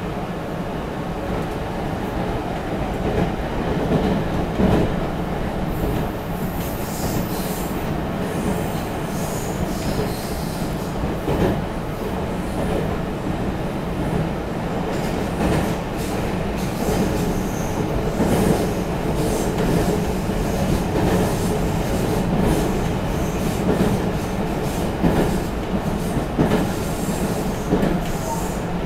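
Interior running noise of a Meitetsu 3700 series electric train at about 65 km/h: a steady rumble of wheels on rail with repeated clicks and knocks from rail joints, and brief high-pitched sounds now and then.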